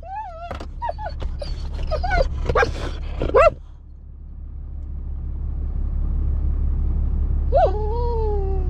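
A dog whining and yipping in short rising-and-falling cries for the first three and a half seconds, over the steady low rumble of the truck. Near the end one long drawn-out pitched call begins.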